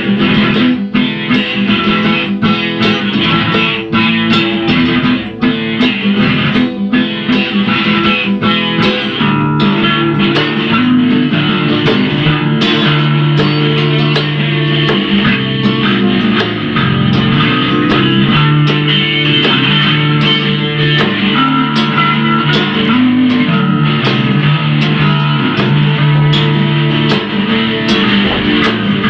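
Instrumental rock music on guitars and bass: sharp strummed chords for the first several seconds, then held guitar notes over a moving bass line.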